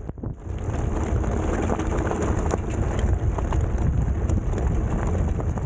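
Fat tires of an electric folding bike rolling over loose gravel: a steady crunching crackle with scattered pops of stones, over wind rumble on the microphone. The sound fades in over the first half second.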